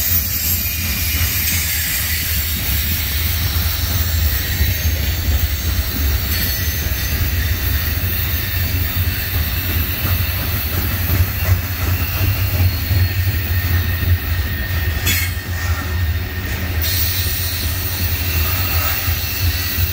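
Loaded coal hopper cars of a freight train rolling past: a steady low rumble of steel wheels on rail, with a continuous high-pitched wheel squeal.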